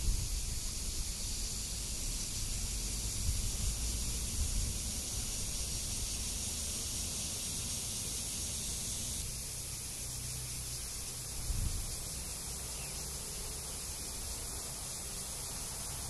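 A chorus of cicadas: a steady, dense high-pitched buzz like a hiss. Low rumbles swell underneath a few times.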